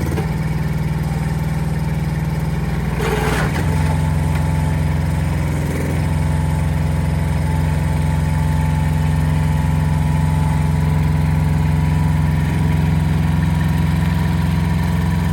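Small mini excavator engine running steadily at a constant speed. A brief clatter comes about three seconds in, and the engine note then runs a little louder.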